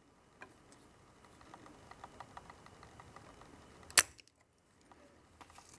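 A spring-loaded solder sucker (desoldering pump) snaps once, sharply, about four seconds in: its plunger releases to pull molten solder off the joint. Before it there are faint small ticks and crackle.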